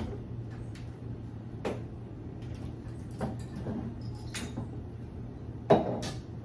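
Bottles and seasoning containers knocking and clicking against a kitchen cabinet shelf as they are taken out and handled, about five separate knocks with the loudest near the end, over a low steady hum.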